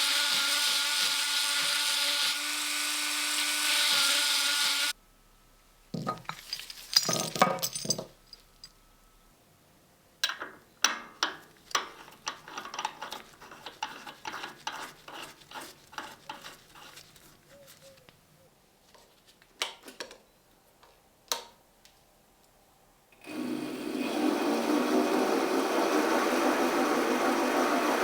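A small electric power tool runs steadily with a whine and stops about five seconds in. Light clicks and taps of small metal parts being handled follow, then a power tool starts again near the end with a rougher, noisier sound.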